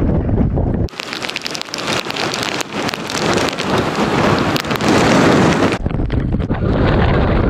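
Storm wind buffeting the microphone with a low rumble, cutting about a second in to a steady hiss of heavy storm-driven surf, then back to wind rumble near the end.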